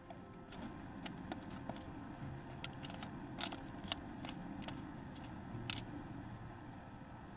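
Primus gas canister stove burning with a steady low rush, while gloved hands work a bottle and its screw cap, giving a string of sharp clicks and ticks. The loudest clicks come near the middle and about three-quarters of the way through.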